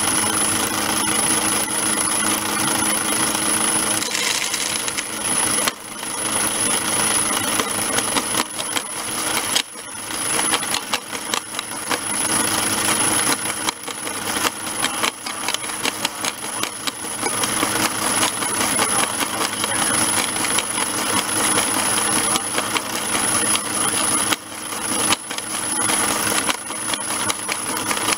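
Scale-model mobile rock crusher running, small stones rattling and clattering through it in rapid, irregular clicks over a steady high-pitched whine. A low hum underneath stops about four seconds in.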